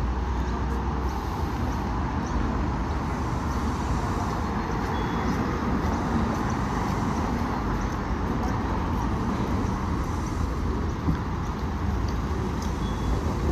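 Double-decker bus idling at a stop, its engine running with a steady low hum under general street traffic noise.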